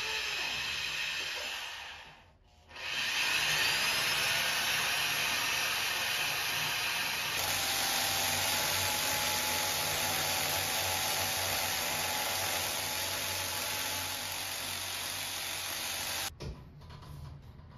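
Corded electric drill boring into ceramic wall tile, running steadily. It stops briefly about two seconds in, starts again, and cuts off shortly before the end.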